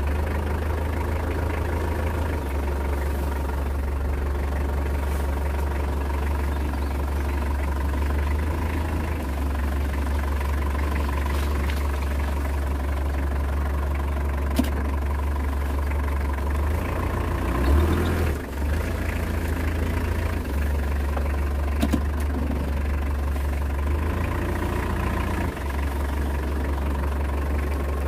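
A 17-year-old vehicle's engine idling with a steady low drone. A few faint clicks sound over it.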